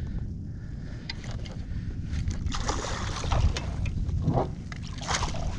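Water splashing and lapping beside a kayak, with wind rumbling on the microphone. The splashing grows busier from about two and a half seconds in.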